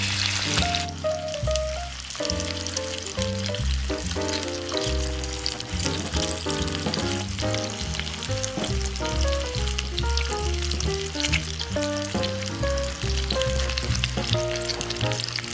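Chicken leg quarters frying in vegetable oil in a frying pan: a steady sizzle with fine crackles, louder in the first second after the pieces go into the oil.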